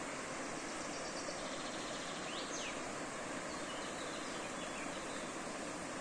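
Steady rush of a shallow river running over rocks and around fallen trees. Faint birdsong sits above it: a short trill about a second in, then a few quick chirps around the middle.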